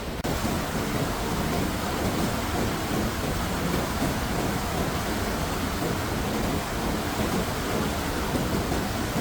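Steady, dense rushing of water, heavy and even throughout, cutting in abruptly just after the start.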